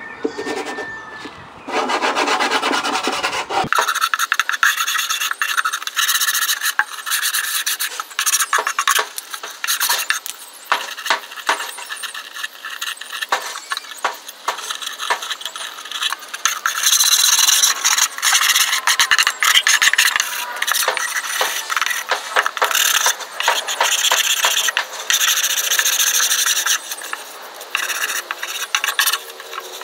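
Sandpaper wrapped on a wooden block rubbed quickly back and forth over a plywood magazine file, a dense run of scratchy strokes. This is hand-sanding to take the rough surface and sharp corners smooth before staining.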